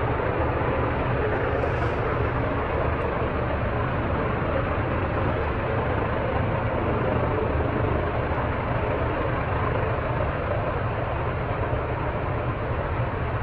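xAI power plant running with a steady, unchanging roar and a low hum underneath.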